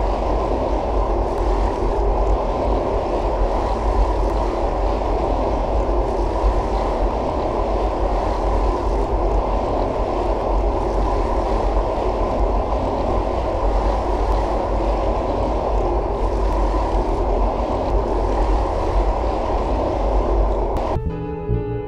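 Steady, low rushing noise of churning water, with no rhythm or distinct events. Piano music comes in just before the end.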